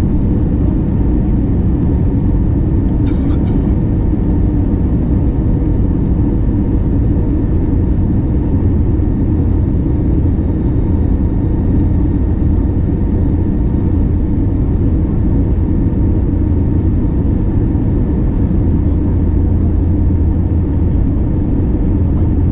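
Steady cabin drone inside an Airbus A321neo in flight: engine and airflow noise with a deep hum and faint steady whining tones above it. A brief click about three seconds in.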